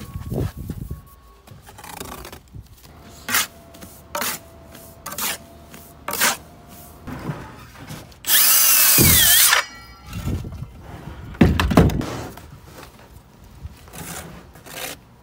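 Handheld circular saw cutting through an aerated concrete block for about a second and a half, its motor pitch dipping as the blade bites. It is the loudest sound, with sharp knocks and scrapes of a steel trowel on concrete blocks before and after it.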